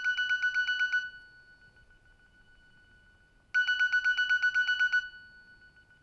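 Nokia 6260 'Clock alert' alarm tone: bursts of rapid high beeping, about ten beeps a second for roughly a second and a half, each burst dying away into a fading ring. A new burst starts about three and a half seconds in.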